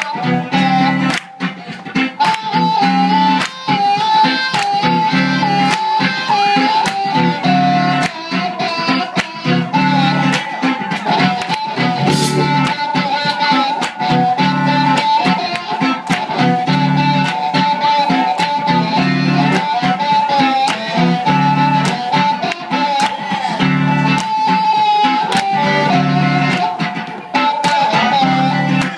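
Live blues band: a harmonica (blues harp) played through a cupped microphone holds long, slightly bending notes over electric guitar, a throbbing low bass part and a steady drum beat.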